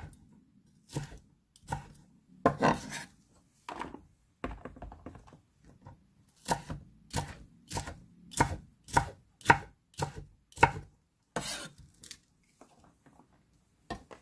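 A kitchen knife chopping deseeded red and green chili peppers on a thick wooden cutting board: separate knocks of the blade on the wood, about one or two a second, with short pauses between runs.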